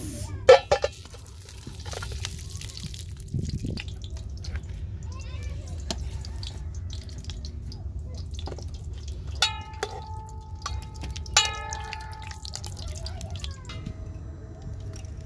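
Metal spoon scraping and knocking lumps of solid fat from a steel bowl into an aluminium cooking pot: a few sharp clinks near the start, then two metal strikes later on that ring on briefly, over a steady low rumble.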